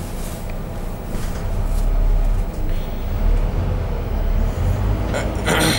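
Double-decker bus's diesel engine running as heard from the upper deck, growing louder about a second and a half in as the bus pulls forward. Near the end comes a short hiss lasting about half a second.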